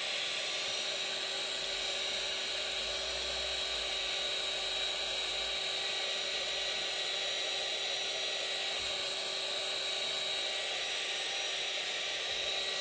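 Handheld craft heat tool running steadily while drying a wet card panel: a constant whine over a rush of blown air. It switches off at the very end.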